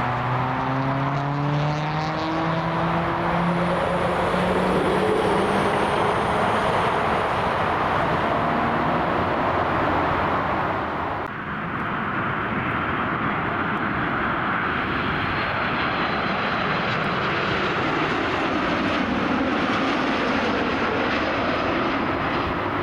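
Jet airliner engines giving a steady noise, with a hum that rises in pitch over the first few seconds. The noise dips briefly about halfway through.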